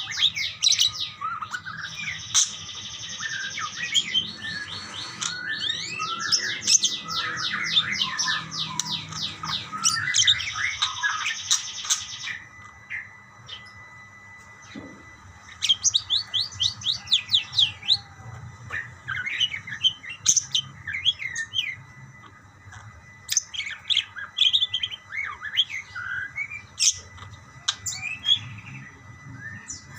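Budgerigars (parakeets) chattering and calling back and forth. Dense, rapid warbling trills fill roughly the first twelve seconds, then thin out to scattered chirps.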